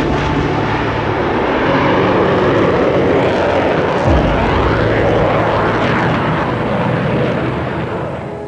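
Jet noise from a Rafale fighter's twin Snecma M88 engines during a fast low pass, easing off near the end as it moves away. Low sustained orchestral chords play underneath.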